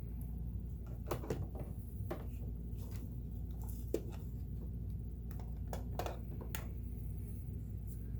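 Scattered light clicks and taps of small parts being handled and cleaned in the bobbin area of a Kenmore 1802 sewing machine, one sharper click about four seconds in, over a steady low hum.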